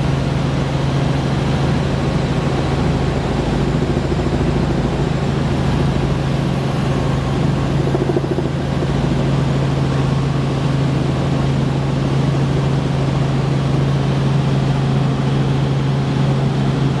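Helicopter in cruise flight heard from inside the cabin: a loud, steady drone of engine and rotor, a strong low hum under a constant rushing noise.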